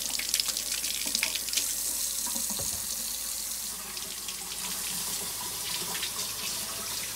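Kitchen faucet running a steady stream into a stainless steel sink as tomatoes are rinsed under it, with a few light clicks and a dull thump about three seconds in.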